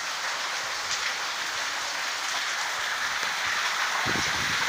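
Heavy rain pouring down, a steady hiss of rain on concrete and plants, with a few low thumps near the end.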